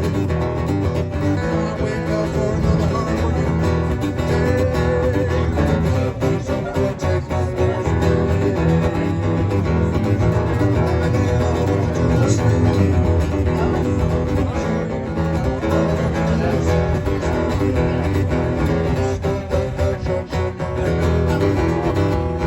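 Live guitar-driven blues-rock music playing an instrumental passage with no singing, over a steady, heavy bass line.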